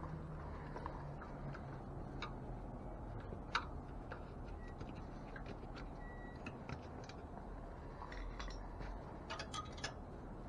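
Scattered light metal clicks and taps from bicycle spokes and spoke nipples being handled while replacement spokes are laced into the wheel. The sharpest click comes about three and a half seconds in, and a quick run of clicks comes near the end.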